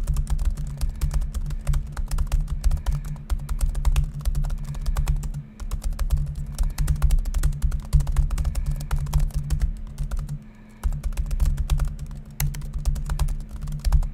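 Fast typing on the Asus Zenbook Flip S (UX370UA) laptop keyboard, its shallow 1 mm-travel keys giving a rapid, continuous stream of clicks and low thuds, with brief lulls about five and a half and ten and a half seconds in. A steady low hum runs underneath.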